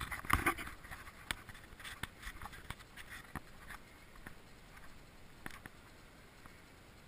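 Footsteps crunching on a loose crushed-rock path, a string of uneven crunches that thin out in the second half as the walker slows.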